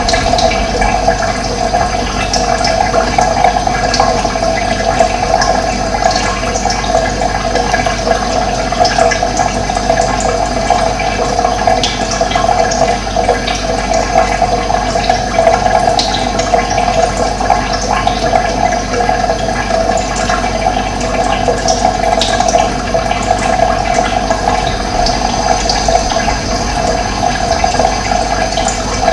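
Running water, a steady unbroken rush of flow.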